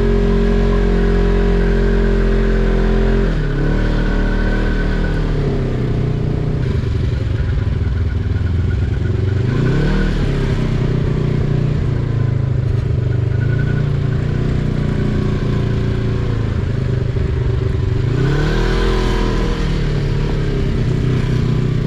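UTV engine running under load, its revs dropping a few seconds in, then climbing again about ten seconds in and once more near the end.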